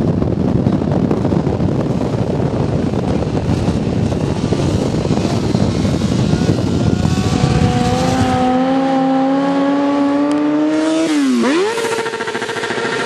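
Sportbike engine pulling through a wheelie: first under a heavy low rumble, then its pitch climbs steadily. About eleven seconds in it drops sharply and comes straight back up, then holds at a steady high rev.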